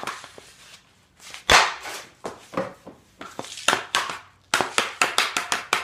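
Hockey stick and puck: a series of sharp cracks and clacks, the loudest about 1.5 s in, with a quick run of sharp taps near the end.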